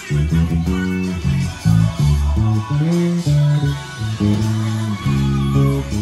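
Ken Smith five-string electric bass played through an amp: a melodic line of plucked, sustained low notes that change every half second to a second, with one note sliding up in pitch about three seconds in.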